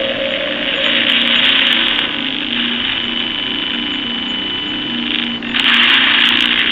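Spirit box app hissing loud, steady static, with a faint wavering hum and a thin steady tone running through it. The static drops out for a moment about five and a half seconds in, then comes back harsher.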